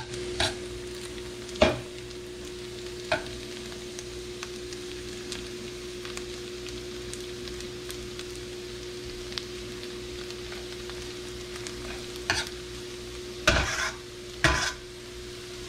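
Diced celery and onion sizzling in a stainless steel sauté pan, nearly done softening, stirred with a metal utensil. A few sharp scrapes and knocks of metal on the pan stand out, the loudest near the start and near the end, over a steady low hum.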